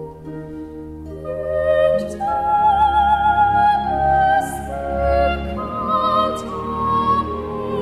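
Background classical music with an operatic singing voice, held notes wavering with vibrato, starting softly and swelling louder about two seconds in.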